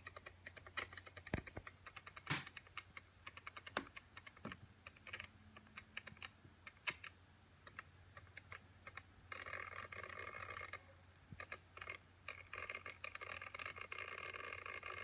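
Keys clicking on a mid-2012 MacBook Pro keyboard, then about nine seconds in a steady buzzing noise starts, stops after a second or so, and comes back for the last few seconds: the weird noise the MacBook is making.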